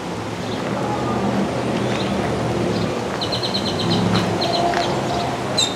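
A small bird chirping in quick runs of short high notes, once in the middle and again at the end, over a steady low background hum.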